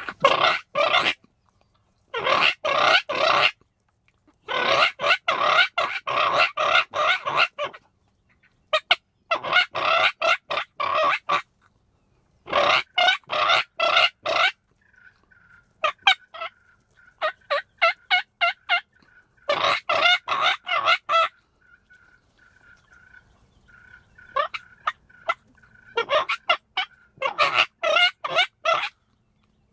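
Wild turkey gobbling loudly and repeatedly: about ten rapid, rattling gobbles in half a minute, some running together into longer bursts, with a lull in the middle.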